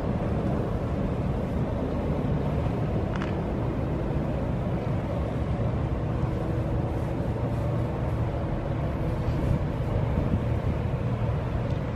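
Steady low rumble of running machinery or an engine, with no clear start or stop.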